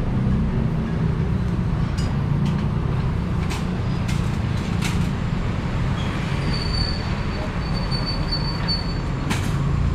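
Street ambience: a steady low rumble of traffic, with a few scattered sharp clicks and a thin high squeal that holds for a couple of seconds in the second half.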